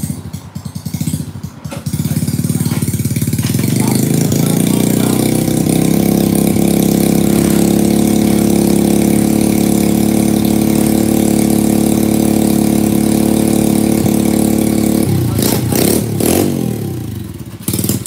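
Small scooter engine revved up about two seconds in and held at high, steady revs, then rising and falling a couple of times before settling back down near the end.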